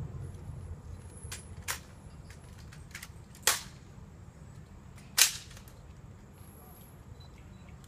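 Sharp single cracks of military honor guard drill (rifle handling and heel clicks) during a guard inspection: a few lighter clicks, then two loud cracks about a second and a half apart in the middle.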